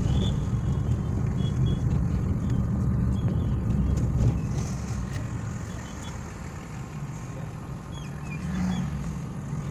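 Car engine and road noise heard from inside the cabin while driving slowly through city traffic: a steady low rumble that eases off about halfway through, with a few faint short high tones.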